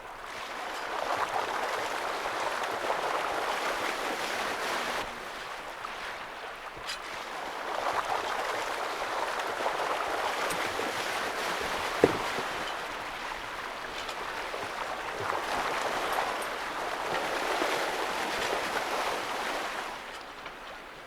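Water rushing and splashing along a sailing boat's hull as it moves through waves, swelling and easing in long surges every few seconds. A single sharp knock sounds about halfway through.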